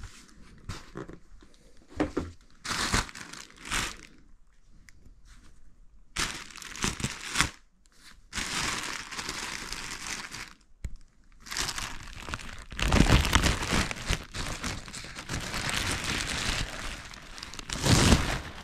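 Plastic packaging crinkling and tearing as a body-armour vest is unwrapped, in irregular bursts that grow busier and louder in the second half.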